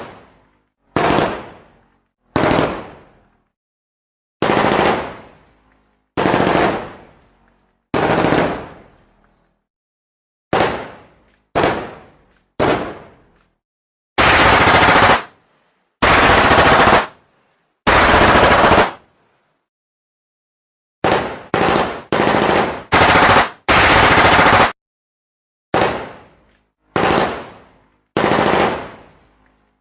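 Gunfire sound effects: a string of separate shots or short bursts, each starting sharply and trailing off over about a second. From about halfway in come three longer, full-strength bursts of continuous automatic fire, then a quick cluster of bursts, then more shots that trail off.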